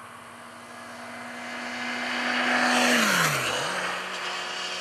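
A motor vehicle passing on a nearby road: tyre and engine noise build up, are loudest about three seconds in, then fade, with the engine's tone dropping in pitch as it goes by.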